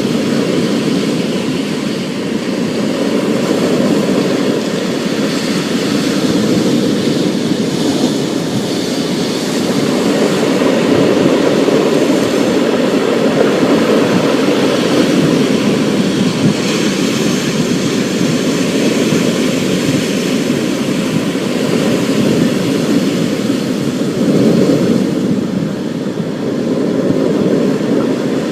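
Thunderstorm ambience: a continuous low rumble with a fainter hiss above it, gently swelling and easing.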